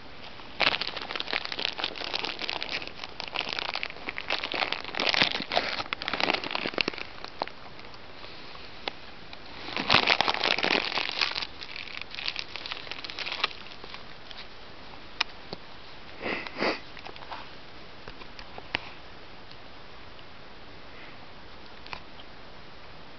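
A dog gnawing and chewing on something held between its front paws: dense crackling crunches come in spells, the longest over the first seven seconds, with shorter spells about ten and sixteen seconds in.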